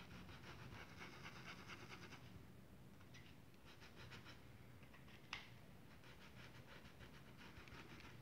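Faint, fast scratchy strokes of a paintbrush working fabric paint into thick denim, coming in runs with short pauses, and one sharp click about five seconds in.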